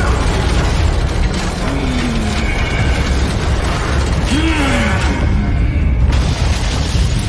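Action-scene soundtrack: music mixed with a steady low rumble and mechanical sci-fi sound effects, with a few short sweeping tones.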